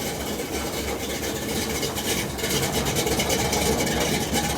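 Chevrolet C10's V8 with a Comp Cams Thumpr 279 flat-tappet camshaft idling steadily with a deep rumble.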